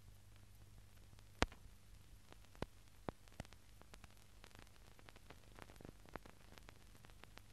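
Near silence: a faint low hum and hiss from an old film soundtrack, broken by scattered clicks and pops, the sharpest about a second and a half in.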